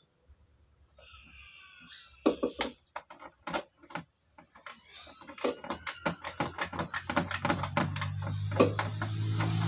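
Scattered clicks and knocks as the radiator is handled, coming faster after about five seconds. In the last couple of seconds a motor vehicle's engine hum swells up underneath.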